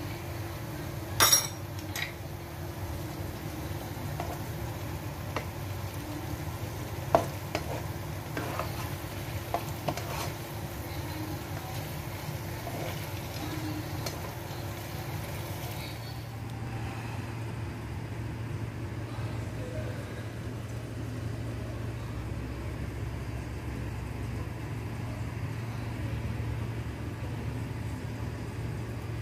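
A metal spoon stirring stir-fried eggplant in a nonstick frying pan, with a frying sizzle and spoon-on-pan knocks and scrapes; the loudest clatter comes about a second in. About halfway through the sizzle and knocks stop and a steady low hum is left.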